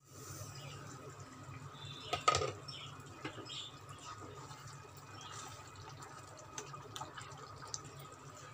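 Thick spinach gravy of palak paneer simmering in an open pan, bubbles popping softly, with one sharp knock about two seconds in and a few lighter ones after.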